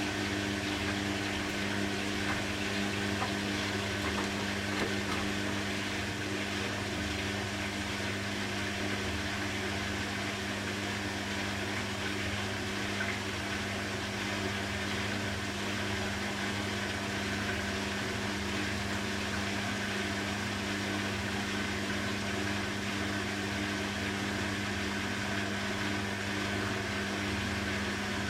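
Beko WTB841R2W washing machine running: a steady hum with a couple of constant tones over an even hiss, holding the same speed with no starts or stops.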